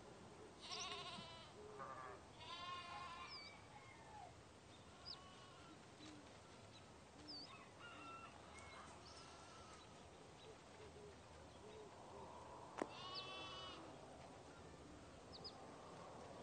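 Sheep bleating: a wavering bleat about a second in, another around three seconds in, and a third near the end. Short bird chirps come in between, and there is a single sharp click just before the last bleat.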